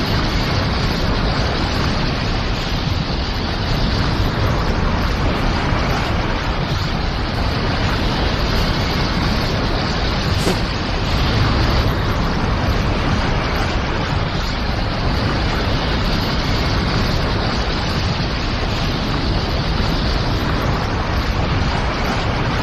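A loud, continuous rushing roar of noise from an anime sound-effects track, holding steady with no music or voices.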